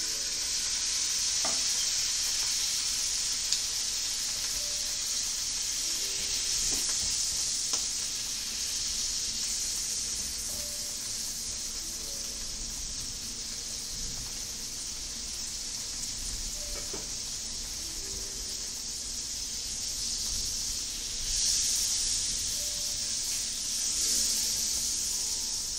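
Butter and lemon juice sizzling in a hot frying pan with capers and garlic, a steady frying hiss as the piccata pan sauce cooks. It swells briefly twice near the end.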